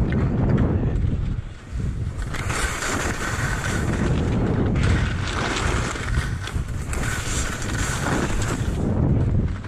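Wind buffeting the microphone with a steady heavy rumble, while skis scrape and hiss over the snow in several bursts as the skier carves turns downhill.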